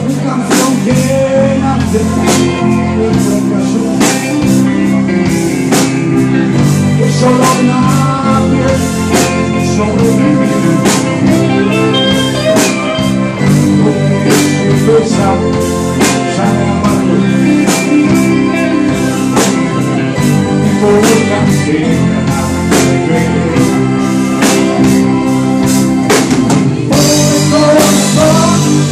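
Live pop-rock band playing: electric guitars, bass guitar and drum kit keeping a steady beat, with a man singing into the microphone.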